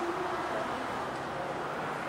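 Steady, indistinct background noise with no distinct events, and a faint voice trailing off at the very start.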